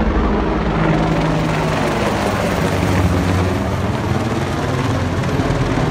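AH-64 Apache attack helicopter flying low overhead: a loud, steady rotor beat over the whine of its twin turboshaft engines.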